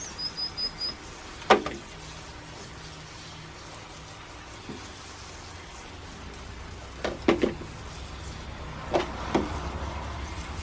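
Degreaser sprayed from a pump sprayer's wand onto plastic wing mirror parts: a steady hiss of spray, with sharp knocks and clatters as the plastic parts are handled on a rubber mat, once about a second and a half in and several more in the second half.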